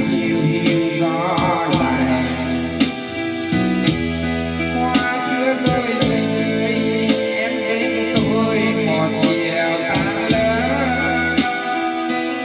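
A song with a solo singer over a steady beat and repeating bass notes, played back over loudspeakers.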